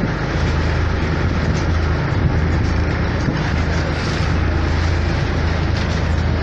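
Steady low drone of a kaiki's inboard engine heard from on board, under wind and the wash of a choppy sea.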